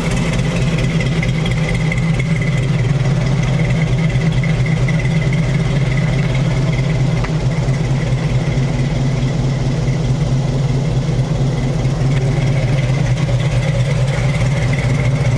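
Small-block Chevy V8 swapped into a Toyota FJ40, idling steadily with an even low pulse.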